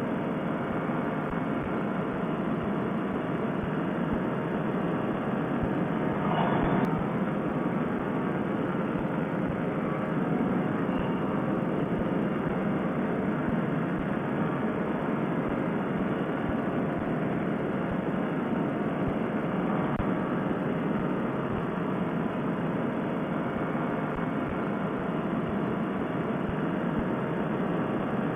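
Fresh Breeze Monster two-stroke paramotor engine running steadily at cruising power in flight, a continuous drone mixed with wind rush.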